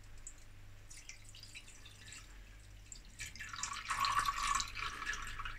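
Water pouring in a thin stream from a saucepan through a silicone pour spout, splashing into water in a larger stainless steel pan, louder from about three seconds in.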